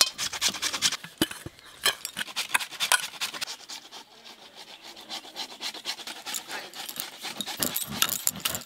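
A metal spatula scrapes out a metal wok, followed by rough rubbing and scraping as hands work rice flour over a sieve. The strokes are short and irregular, and they go quieter midway.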